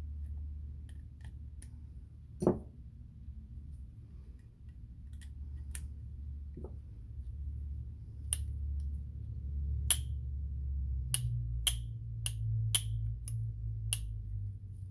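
Small, sharp metal clicks, about eight in the last six seconds, as the bale-lever spring and parts on a Penn 113 reel's side plate are worked with pliers and fingers. A single louder knock comes about two and a half seconds in, over a steady low hum.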